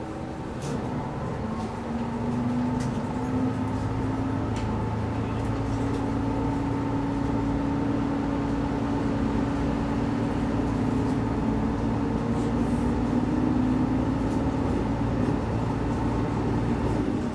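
Diesel railcar under way, heard from inside the car: the engine's drone grows louder about two seconds in and its pitch climbs slowly as the train gathers speed, easing off near the end, with a few faint clicks from the running gear.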